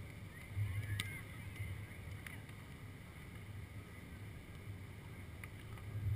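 Wind buffeting the microphone in a steady low rumble on an open beach, with a few faint sharp slaps of a volleyball being hit during play.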